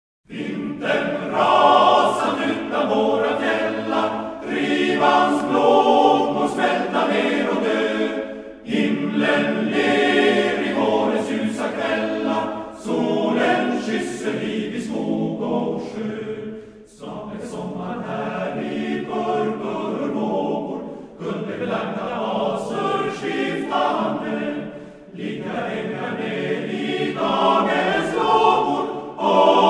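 A choir singing, in phrases of about four seconds with short breaks between them.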